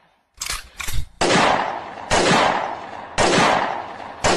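Gunshot sound effects: two short cracks near the start, then four single shots about a second apart, each with a long fading tail.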